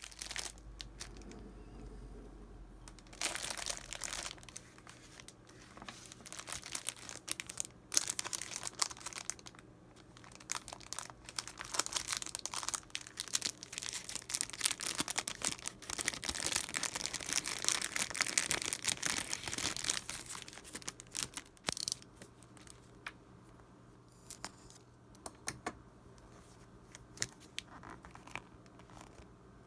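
Clear cellophane packaging around a stack of mini journal cards crinkling and crackling as it is handled and torn open. The crinkling is densest through the middle and dies down about three-quarters of the way in, leaving a few light taps and ticks as the cards are handled.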